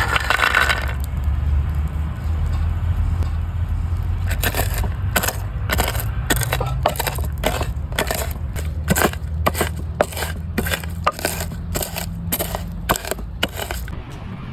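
Ingredients being chopped on a board: a run of sharp, evenly spaced strikes, about three a second, starting about four seconds in and stopping near the end, over a steady low hum.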